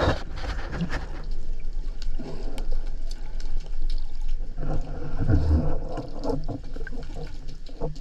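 Water sloshing and bubbling around a submerged camera just below the surface, heard muffled underwater, rising and falling in waves with small scattered ticks.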